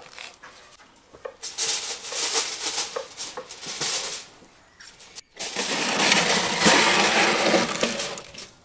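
Metal scraping and clattering as a metal tray is worked into a wood-fired brick oven and pushed across the ash-covered oven floor, in two bouts a moment apart.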